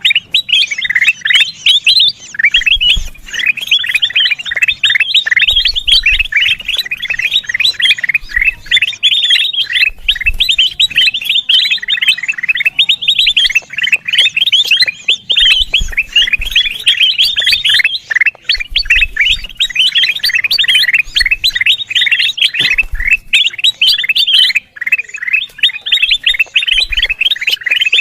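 Kutilang emas (a bulbul) calling noisily in a dense, unbroken stream of rapid chirps, the excited chatter used as a lure call.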